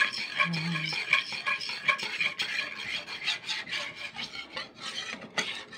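A utensil scraping and stirring a thick, sticky batter of ground rice, coconut milk and sugar around a pan in quick, repeated strokes. The batter has begun to thicken as it cooks, and it is stirred without stopping to keep it from forming lumps.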